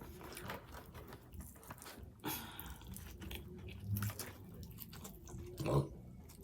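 A person quietly chewing a bite of a hot chicken sandwich, with soft mouth sounds and a few short louder moments about two, four and six seconds in.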